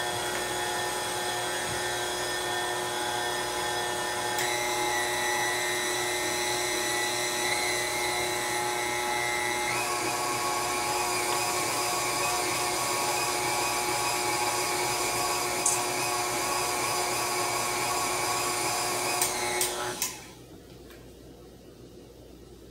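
KitchenAid stand mixer's motor running steadily with a high whine while mixing pound cake batter; its whine shifts a little twice, and it stops suddenly about twenty seconds in after a few clicks.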